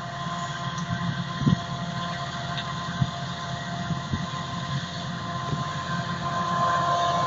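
Claas Jaguar 840 forage harvester with a Kemper 4500 header chopping green rye: a steady machine drone with a high whine over it, getting louder toward the end as it comes closer. There are a couple of low thumps about a second and a half and three seconds in.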